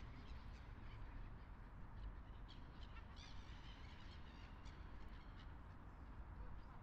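Faint, short bird calls, a cluster of them about halfway through, over a low steady rumble.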